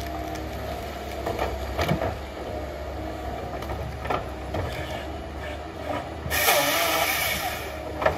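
Tigercat 822D tracked harvester's diesel engine running steadily, with a few sharp knocks as the Tigercat 570 head handles logs, and a loud harsh burst of high whining noise for about a second and a half, about six seconds in, as the head works a log.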